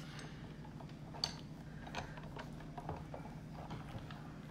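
Faint scattered clicks and taps of clear acrylic cutting plates, a die and paper being handled and set on a die-cutting machine's platform, over a low steady hum.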